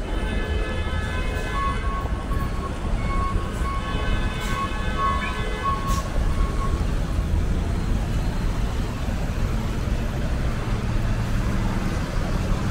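Street traffic running steadily, a constant low rumble of engines and tyres. During the first half a steady high-pitched tone with overtones comes and goes, then stops.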